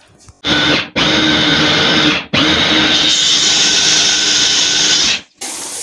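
Electric countertop blender motor running in three runs, cutting out briefly just before one second in and again after about two seconds, then stopping near the end. It is puréeing tomatoes, leeks, onions, garlic and black mbongo spices into a thick paste.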